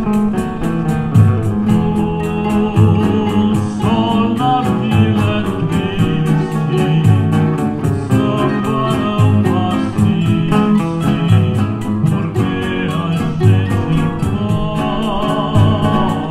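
A samba song sung live over two acoustic guitars, a cavaquinho and hand percussion keeping a fast, steady tick.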